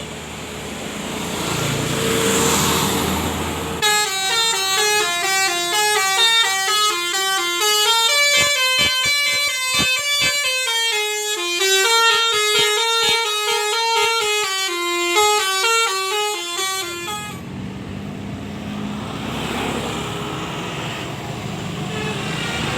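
A bus's Basuri V3 telolet multi-trumpet horn playing a long melody of quick stepped notes from about four seconds in, cutting off abruptly near seventeen seconds. Before and after it, engine and street noise.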